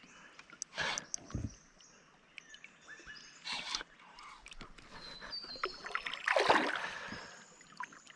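Handling noises on a kayak: scattered knocks and clicks, a few short rushing bursts of noise, the loudest a little past the middle, with faint high chirps in the background.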